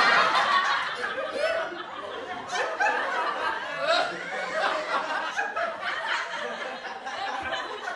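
People laughing over a voice-chat connection, several voices overlapping.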